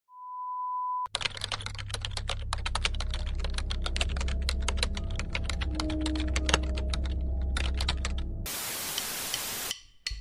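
A steady test-pattern beep for about a second, then rapid, irregular typing clicks over a low hum for about seven seconds, then a burst of static hiss for about a second that cuts off suddenly.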